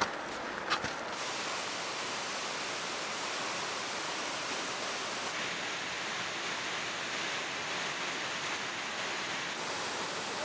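A couple of footstep and trekking-pole clicks in the first second, then the steady rush of a mountain stream cascading over boulders.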